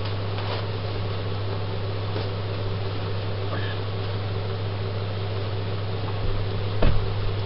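Steady low hum with an even hiss, and a couple of soft knocks near the end.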